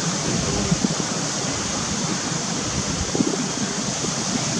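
Steady rushing background noise, even and unbroken, with no distinct event standing out.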